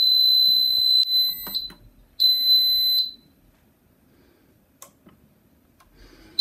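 Teletek MAG2 conventional fire alarm panel's buzzer sounding a steady high-pitched tone in alarm, set off by smoke at a detector. The tone cuts off about a second and a half in, sounds again for under a second, then stops, with a few light clicks.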